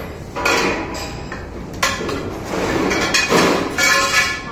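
Steel tube parts of a mini crane stand clanking against each other and the floor as they are lifted and moved: several metallic knocks with ringing, the busiest stretch near the end.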